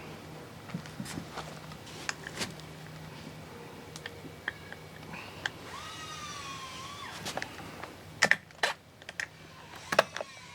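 Small metal clicks and taps from hand work on an outboard's recoil starter and its rewind spring, with a louder run of clacks near the end. Midway there is a single high, drawn-out squeal of about two seconds.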